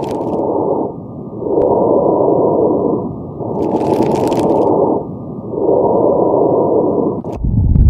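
Breath sounds heard through a stethoscope: a muffled, noisy rush that swells and fades about every two seconds with each breath. A loud low thump comes near the end.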